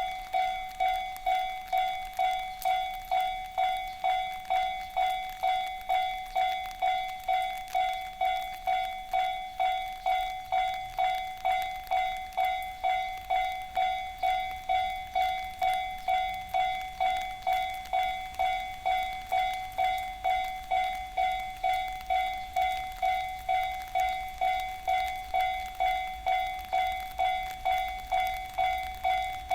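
Japanese railway level-crossing warning alarm (JR standard electronic tone) ringing loudly in a steady, even rhythm of repeated ding strikes. A low rumble from the approaching freight train builds near the end.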